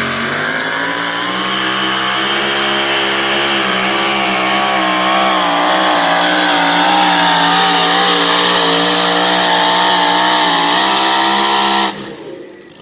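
Two-wheel-drive pulling vehicle's engine at full throttle, dragging a weight-transfer sled down the track. The pitch climbs at the launch, then holds high and wavers under the load, and the engine cuts off abruptly near the end as the pull is over.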